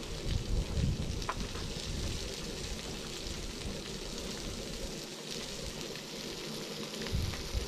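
Twigs burning in a small folding metal wood camp stove under a cooking pot, with a steady crackling hiss. Wind gusts on the microphone.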